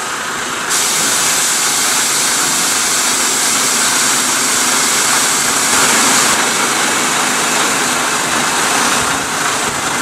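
Iveco tractor unit running as it is driven out from under the refrigerated semi-trailer after uncoupling, under a loud steady hiss that starts abruptly about a second in.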